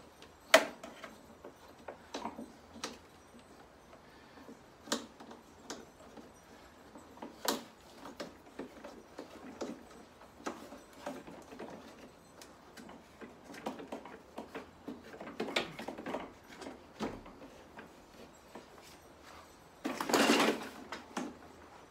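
Scattered plastic clicks and knocks from handling the parts of a Bosch Rotak 34-13 electric lawnmower during assembly, with its red power cable worked along the handle. There is a sharp knock about half a second in, and a louder rustling clatter lasting about a second near the end.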